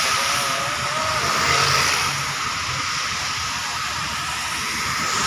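Cars and motorcycles passing on a rain-wet highway, their tyres hissing on the wet pavement over the engine noise. A thin steady high tone runs underneath.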